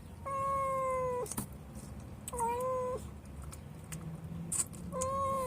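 Mother cat meowing three times, the first call the longest at about a second, the others shorter.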